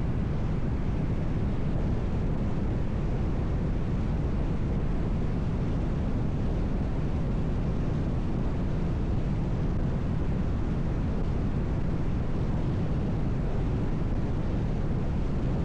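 Steady low road rumble of a car driving on the highway: tyre and engine noise with no changes or distinct events.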